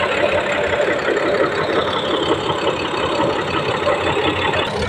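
Komatsu bulldozer's diesel engine running steadily and loudly as the machine travels, a dense continuous rumble with a fast pulsing texture.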